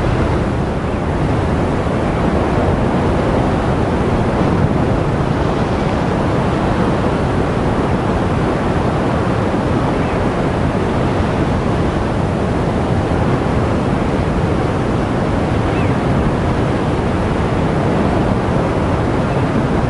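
Ocean surf breaking on a rocky shore in a steady, continuous wash, with wind rumbling on the microphone.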